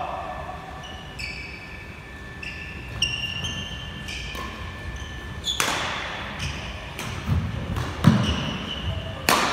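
Badminton rally on a wooden indoor court. Shoes squeak briefly on the floor several times, a racquet strikes the shuttlecock sharply about halfway through and again near the end, and footsteps and a lunge thud on the boards in between.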